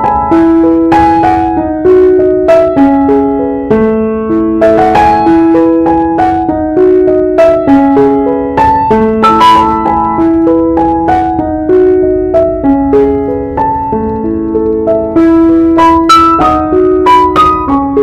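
Background piano music: a slow melody of held notes, each struck and left to ring, playing without a break.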